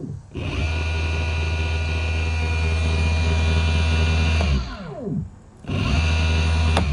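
A 48-volt brushless electric motor spinning with no load on its bare shaft under twist-grip throttle, as an initial power test. It spins up about a third of a second in and runs steadily with a low hum and a high whine. About four seconds later it winds down with falling pitch, then spins up again near the end.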